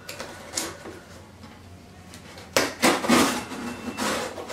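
Cardboard shipping box being handled and its packing tape cut open with a blade. Light knocks and rustles, then from about halfway a few loud scraping, tearing bursts.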